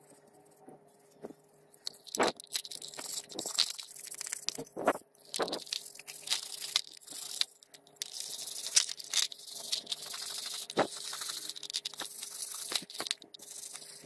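Stiff brushes scrubbing the greasy, rusty metal gear housing of an angle grinder: a bristle brush, then a steel wire brush, in rapid scratchy strokes with occasional knocks of the part against the tray. The scrubbing starts about two seconds in and pauses briefly a little past halfway. A faint steady hum lies underneath.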